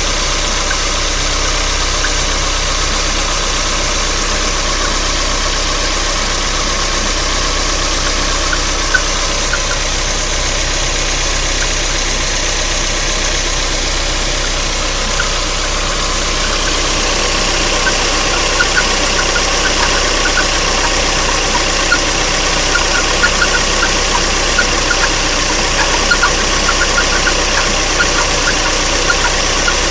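Mazda Roadster (NB) engine running steadily with an irregular ticking, an abnormal noise. The ticks become more frequent about halfway through.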